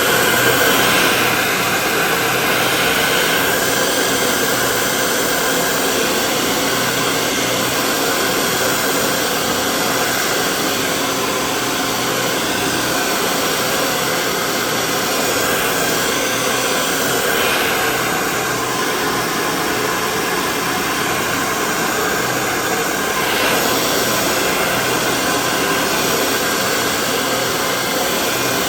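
Handheld hair dryer running steadily, its loud blowing noise switched on just before and held without a break.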